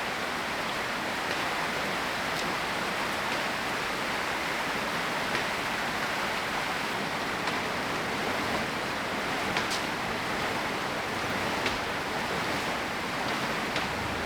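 Steady rain falling, an even hiss with a few light ticks of drops scattered through it.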